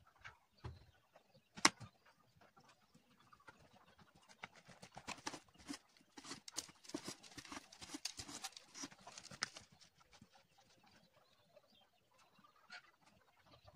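Arrows being pulled out of a cardboard-box archery target and rattling against each other in the hand: a run of quick clicks and scrapes in the middle. A single sharp knock comes about two seconds in.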